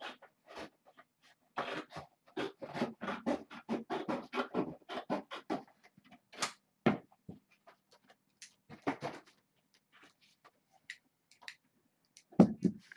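Handling noises from stiff posterboard being worked against a wire pen fence: a dense run of rustling and clicking in the first half, scattered taps after, and a heavier thump near the end.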